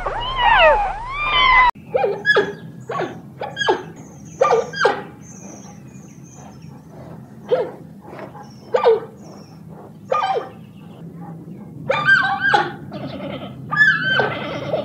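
Kittens meowing, several calls overlapping, until a cut about a second and a half in. Then a giant panda's short bleating and chirping calls, a dozen or so with pauses between them and bunched together near the end.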